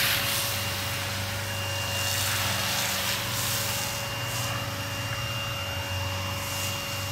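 A steady machine hum with a faint high whine over a light hiss.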